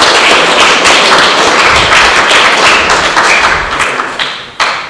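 Audience applauding a correct answer: dense clapping that dies away near the end, with a single sharp knock just before it stops.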